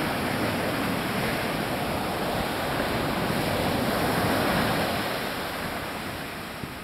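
Ocean surf breaking and washing up a sandy beach, a steady rush that swells and then eases off near the end.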